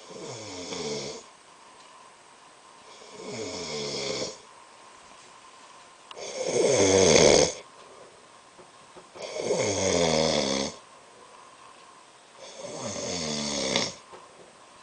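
A man snoring in his sleep: five snores about three seconds apart, each one dropping in pitch as it goes, the third the loudest.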